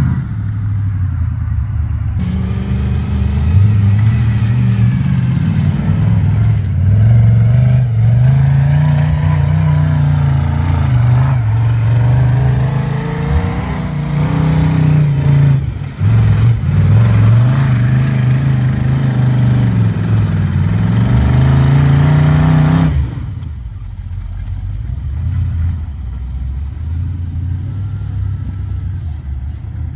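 Off-road buggy engine revving, its pitch rising and falling again and again as it works over the terrain. About 23 seconds in the revving stops and it settles to a lower, quieter running sound.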